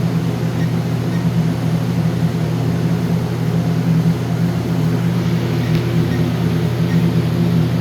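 Steady low machine hum with no breaks or changes.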